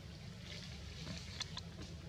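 Outdoor background noise with a steady low rumble, and a few faint sharp clicks about a second and a half in.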